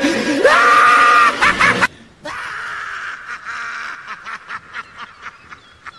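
Laughter sound effect in a channel intro jingle: about two seconds of loud shrieking with a swooping, wavering pitch, then quieter rapid cackling at about four pulses a second.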